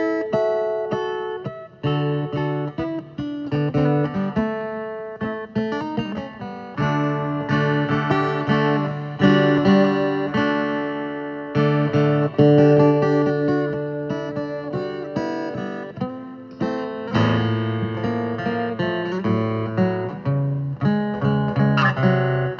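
Guitar music: plucked and strummed guitar playing a changing run of notes.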